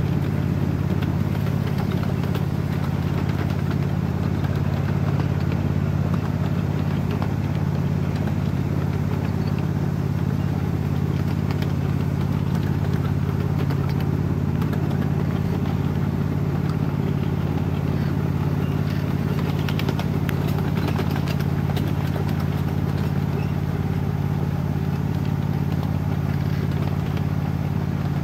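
Ride-on miniature railway train running along its track: a steady motor drone with scattered clicks and clatter from the wheels on the rails.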